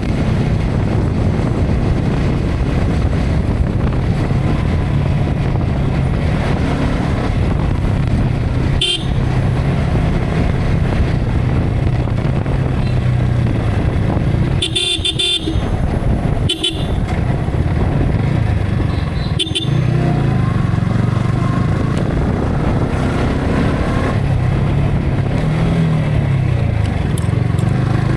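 Yamaha R15 V3's single-cylinder engine running on the road, its pitch rising and falling with the throttle, under heavy wind noise on an action camera's built-in microphone. Short horn toots sound about 9 seconds in, twice around 15 to 17 seconds, and again near 20 seconds.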